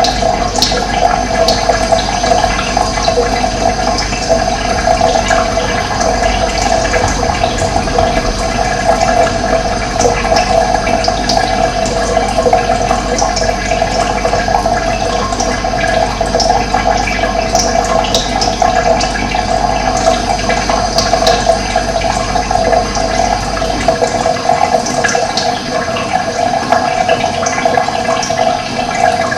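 Running water flowing in a steady, continuous rush, with scattered short high bird chirps above it. A low rumble under the water stops near the end.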